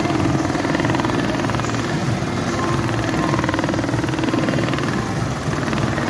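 Industrial cap visor stitching machines (RAMBO RM-342CPV) running, the needles stitching at a fast, steady rhythm.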